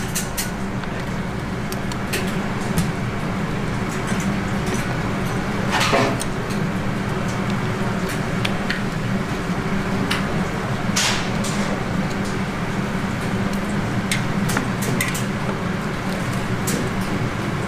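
Wooden spatula and metal tongs scraping and clicking against a large steel wok and a paper cup as glazed fried chicken is scooped, over a steady background hum. There are scattered light clicks and two longer scrapes, one about six seconds in and one about eleven seconds in.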